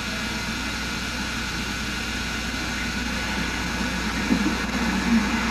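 Steady electrical hum and hiss from an old analog video recording, with no speech. A couple of faint short sounds come about four and five seconds in.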